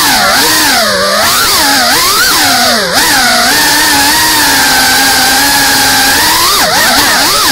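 FPV quadcopter's brushless motors and propellers buzzing, the pitch rising and falling with the throttle. There is a short throttle dip about three seconds in, a steady stretch through the middle, and quick pitch swings near the end.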